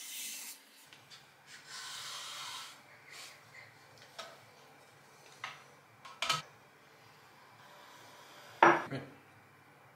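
Cucumber being slid across a stainless-steel mandoline blade: a quick rasping stroke at the start and a longer one about two seconds in, then a few light knocks as the slices are gathered on the wooden board. Near the end a glass jar is set down on the wooden board with a sharp clunk, the loudest sound.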